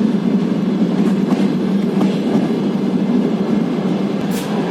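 Passenger train carriage running, heard from inside the compartment: a steady rumble with a few faint clicks of the wheels, the clearest near the end.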